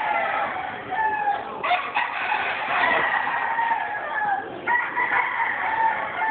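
Roosters crowing again and again, several long calls overlapping one another almost without a pause.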